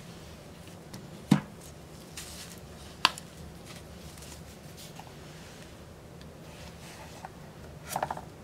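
Plastic paint squeeze bottles being handled and put down on a table: a few sharp knocks, the loudest about a second and a half in, another a couple of seconds later, and a short cluster of small clicks near the end.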